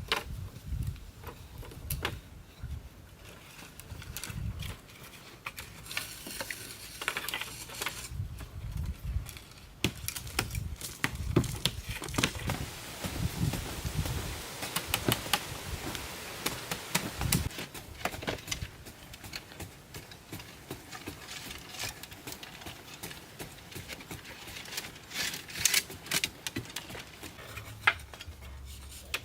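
Irregular taps and knocks, some sharp and some dull, with a stretch of rustling noise around the middle.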